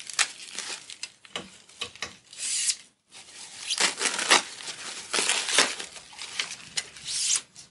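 Plastic wrapping crinkling and tearing as it is pulled open by hand, in irregular bursts with a brief pause about three seconds in.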